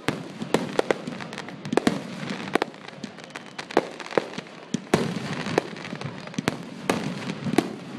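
Aerial fireworks going off: more than a dozen sharp bangs in quick, irregular succession, with a continual hiss and crackle between them.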